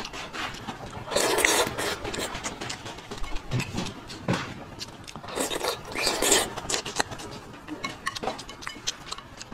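Close-miked eating sounds: a person slurping and chewing long strips of raw salmon in chili sauce. There are two long, loud slurps, about a second in and again past the middle, with smaller wet mouth sounds between them.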